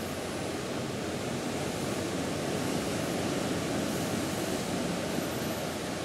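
Steady rushing noise of wind and sea on the deck of a cargo ship under way, with a low mechanical rumble underneath; it swells a little in the middle and has no distinct events.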